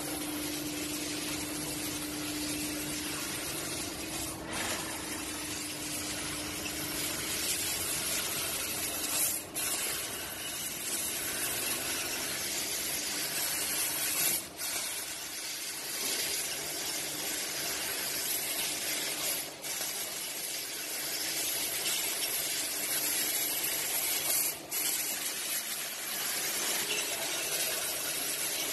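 CNC laser cutting machine cutting sheet metal: a steady hiss from the cutting head's gas jet, dropping briefly about every five seconds, with a low hum in the first few seconds.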